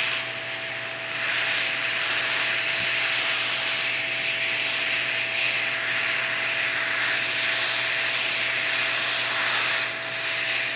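Heat gun blowing hot air steadily with a constant whine, shrinking heat-shrink tubing onto a cable.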